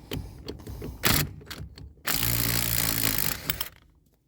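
A power tool runs for about a second and a half, spinning off a loosened rusted lug nut, after a few sharp metallic knocks.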